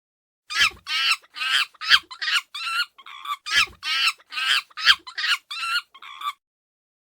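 Monkey calls: a rapid run of about fourteen short, high, wavering cries, roughly two to three a second, stopping about a second before the end.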